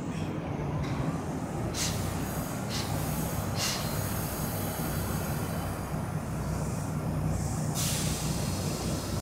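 Kintetsu electric train at a station: a steady low hum, with a few short hisses about two, four and eight seconds in.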